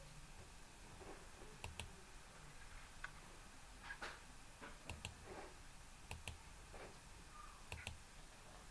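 Faint computer mouse clicks: about four sharp double clicks, each a press and release, spaced a second or more apart.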